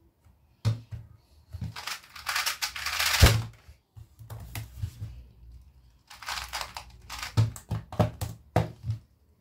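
A 2x2 speed cube turned in a fast, noisy burst of about a second and a half, ending in a hard slap on a speedcubing timer. Later the cube is handled again, with a short stretch of turning and a run of sharp knocks near the end.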